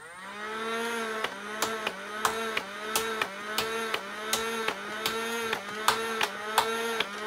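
Nerf Modulus Regulator's flywheel motors spinning up and whining steadily while it fires darts one at a time, about one and a half shots a second. Each shot is a sharp click with a brief dip in the motor's pitch.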